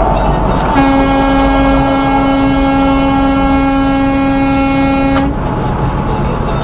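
Semi truck's air horn blown in one long steady blast of about four and a half seconds, starting about a second in, over the constant low rumble of the truck and road.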